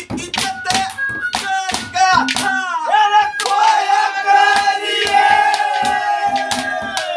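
A man singing a folk song live, his voice rising and falling and then holding one long note through the second half. Sharp handclaps and beats come in the first few seconds, with a steady low tone underneath.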